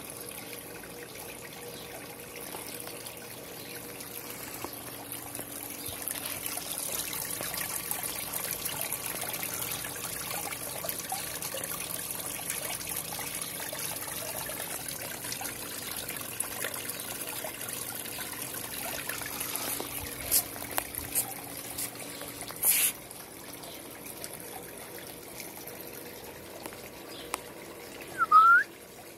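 Water trickling and splashing steadily as it spills over the stacked-rock ledges of a small backyard waterfall into its pond. A few sharp clicks come about two-thirds of the way in, and near the end two short, loud rising whistles sound.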